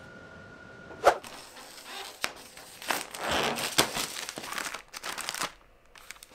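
Plastic wrap crinkling and rustling as it is peeled off a framed art print, in a run of sharp crackles starting about a second in.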